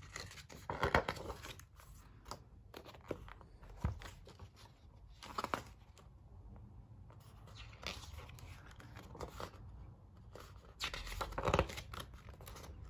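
Pages of a hardcover photo book being turned by hand: short paper rustles and flaps, a few spread out, with the loudest cluster near the end.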